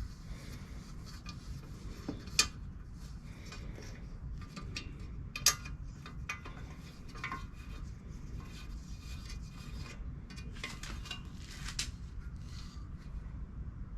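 Light metal clinks, taps and scraping as parts of a metal patio table are handled and fitted, with two louder clanks about two and a half and five and a half seconds in, over a steady low rumble.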